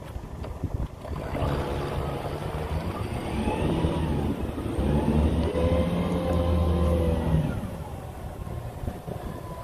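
Outboard motor revving in reverse, backing a small boat off its trailer. It picks up about a second in, holds, and eases back off near the end.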